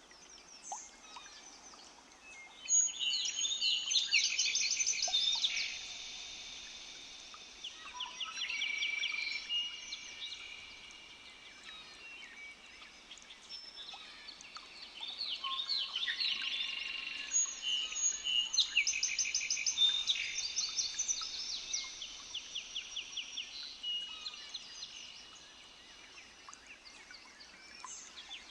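Several wild birds singing and calling over one another, many rapid trills and chirps, swelling into two louder bouts of song.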